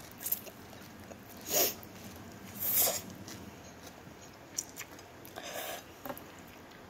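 A child slurping instant noodles into her mouth: a slurp about a second and a half in, a louder one near three seconds, and a softer one later, with small clicks between.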